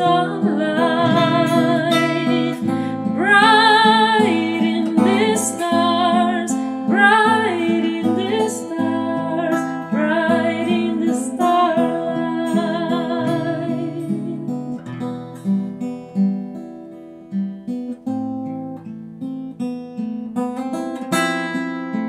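A woman sings a melody with vibrato over a plucked acoustic guitar. About fourteen seconds in, the voice stops and the guitar plays on alone.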